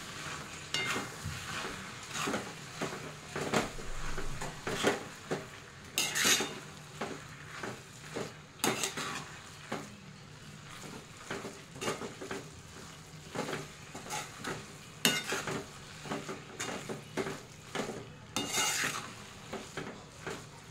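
A metal spatula stirring and scraping ground soya chunks and peas around a metal kadhai: repeated irregular scrapes against the pan, a few of them much louder.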